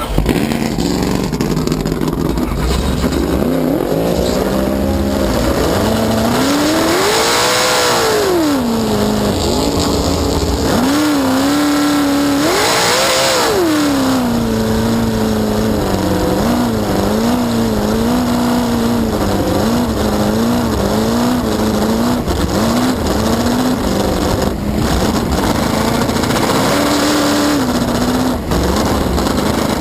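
Cracker box race boat's inboard engine, heard from on board, running hard: the revs climb and fall twice, then hold lower with quick small rises and dips in pitch.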